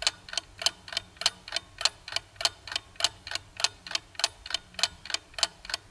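Clock ticking sound effect, steady sharp ticks at about three a second, serving as a quiz countdown timer while the viewer picks an answer.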